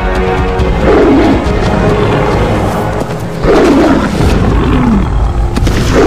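Lion roars, three of them a couple of seconds apart, each falling in pitch, over background music and a low rumble.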